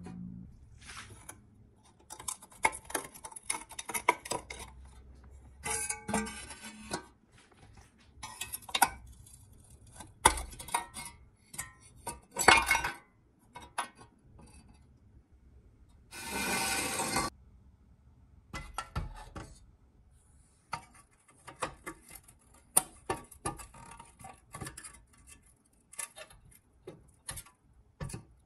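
Rusty pressed-steel parts of a 1957 Tonka toy truck clinking, tapping and scraping as they are handled and worked with a thin metal pick. Light irregular clicks and knocks come throughout, with one longer rasping noise of about a second just past the middle.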